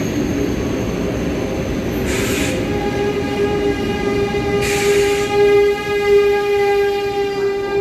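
Train pulling into the platform, with a steady high-pitched squeal setting in about three seconds in and holding, and two short hisses along the way.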